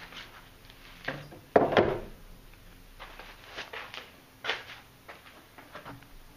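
A few scattered clicks and knocks, the loudest a dull thunk about one and a half seconds in.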